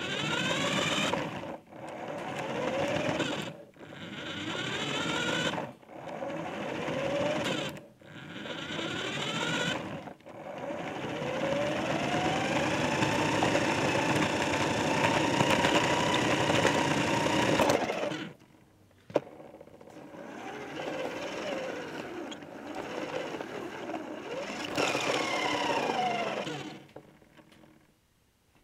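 Remote control car's small electric motor whining as it is driven in short bursts, the pitch rising as it speeds up and falling as it slows, then one long run of about eight seconds before more stop-and-go driving.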